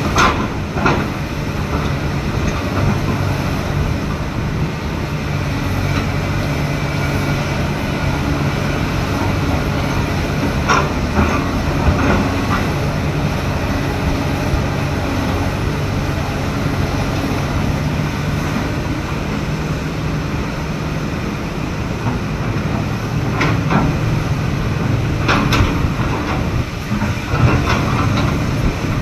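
Excavator's diesel engine running steadily, with a few sharp metallic squeals and clanks from its tracks and steelwork.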